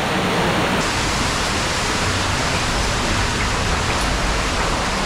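Waterfall in a cave, a steady loud rush of falling water.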